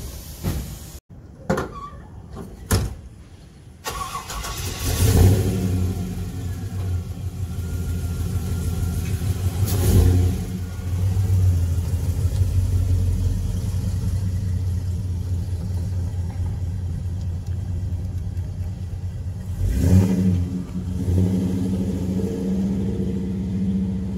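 GM LS3 V8 of a 1955 Chevy Nomad starting up after a few knocks, blipped twice, then running steadily. It revs again near the end and keeps running at a higher note as the car pulls away.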